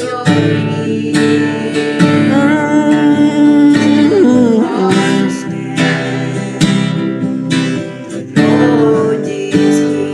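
Gospel song accompaniment with strummed acoustic guitar, with brief wordless vocal phrases between the sung lines.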